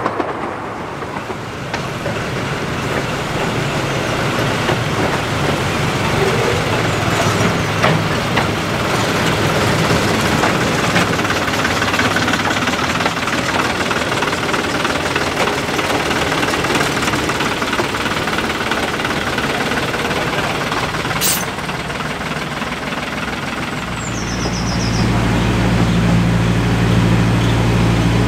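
A small narrow-gauge diesel locomotive running, its engine hum mixed with the rumble of the train. About 24 seconds in, a steadier, louder engine drone takes over.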